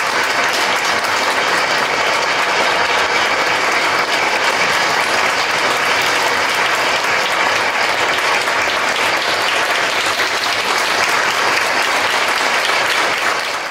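Audience applauding steadily, a dense even clapping that fades out at the very end.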